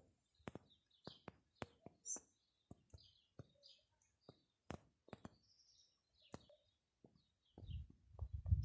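Small birds chirping now and then in short, high calls, among scattered sharp clicks. A low rumble starts near the end.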